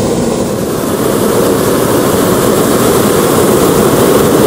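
Hot air balloon's propane burner firing in one long, steady blast, growing a little fuller about a second in.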